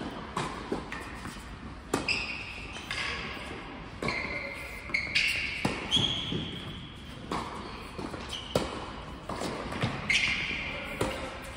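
Doubles tennis rally on an indoor hard court: a series of sharp racket hits and ball bounces, every second or two, with short high sneaker squeaks on the court surface between shots.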